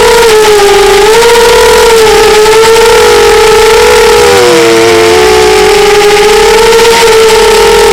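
Small model-airplane engine running at high revs, a loud whine whose pitch wavers slowly up and down as the plane flies, with a hiss of wind over it.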